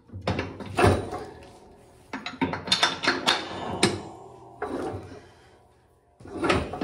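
Metal parts clanking and clicking as a steel hydraulic plow-turning cylinder is handled and set into its mount with bolts and washers: a run of short knocks and rattles, busiest from about two to four seconds in.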